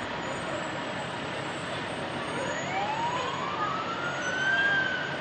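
Emergency vehicle siren winding up, rising steadily in pitch over about two seconds in the second half and levelling off near its top, over steady vehicle and street noise.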